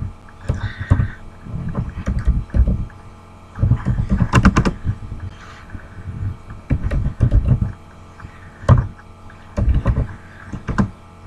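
Typing on a computer keyboard: keystrokes in short, irregular bursts with pauses between words, each stroke a click with a low thud under it.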